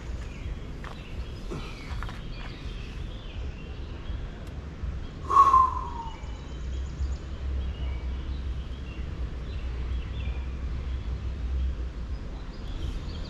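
Outdoor ambience: faint birds chirping over a low, steady rumble, with one short, louder call that glides down in pitch about five seconds in.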